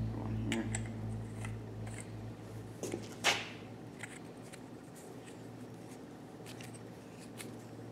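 Brass pipe fittings clicking and scraping as they are handled and screwed onto a black steel pipe, with one louder, brief scrape a little past three seconds in.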